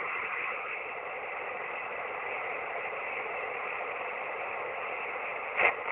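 Steady hiss of band noise from a shortwave receiver tuned to single-sideband voice on the 17-metre amateur band, heard between transmissions, with a short crackle near the end.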